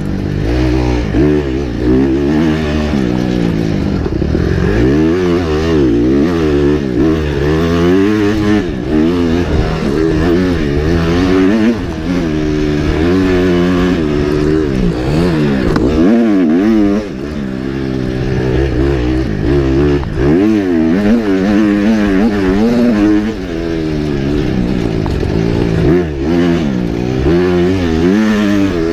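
A motocross bike's engine, heard from on board, is revved hard and repeatedly. Its pitch climbs and drops every second or so as the throttle opens and closes, with brief drops in loudness twice near the middle.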